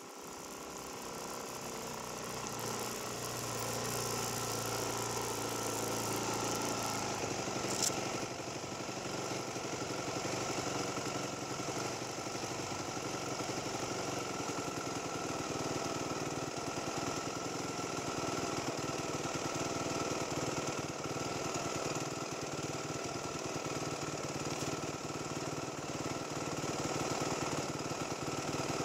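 Dirt bike engine running steadily, growing louder over the first few seconds. A single sharp click comes about eight seconds in.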